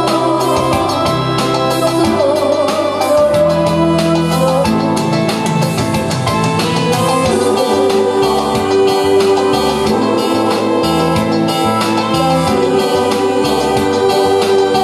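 A woman singing into a microphone over an electronic keyboard accompaniment with a steady drum beat.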